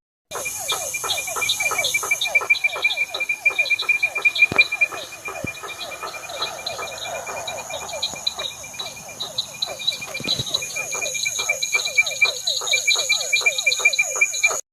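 Night pond chorus: frogs giving rapid, short, downward-sweeping calls several times a second, over the steady high-pitched trilling of crickets and other insects. The sound cuts off abruptly near the end.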